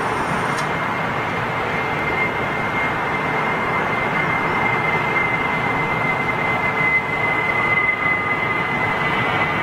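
Jet engines of a British Airways Airbus A320-family airliner at takeoff power as it climbs out overhead: a steady rushing noise with a thin, steady high whine.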